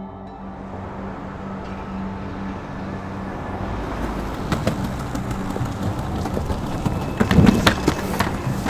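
A lingering low music tone fades out over the first few seconds as outdoor street noise rises. The noise is an even rush, with a few sharp knocks and a low thump about seven seconds in, the loudest moment.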